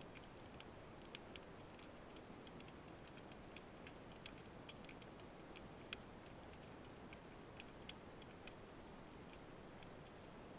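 Faint underwater crackle: scattered, irregular sharp clicks, a few a second with one louder click about six seconds in, over a low steady hiss, typical of the ambient noise of a rocky sea bottom.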